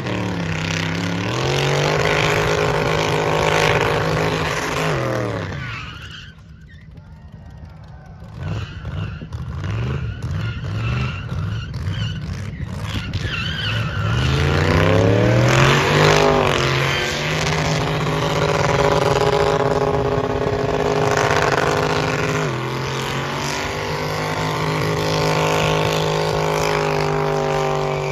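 Burnout car's engine held at high revs while its tyres spin and smoke, the revs falling and climbing again several times. The sound drops away briefly about six seconds in, then builds back with a long rising rev a few seconds later.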